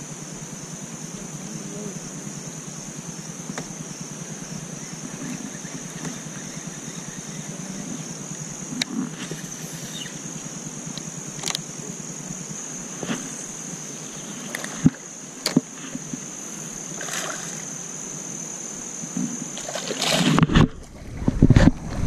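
Water sloshing and splashing around a small fishing boat, with a thin steady high whine throughout and scattered sharp clicks and knocks. A louder burst of splashing comes near the end.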